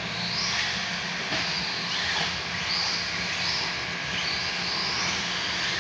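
Radio-controlled short-course trucks and buggies running on a dirt track: their motors give high whines that rise in pitch as the cars accelerate, several times over, above a steady noisy rush.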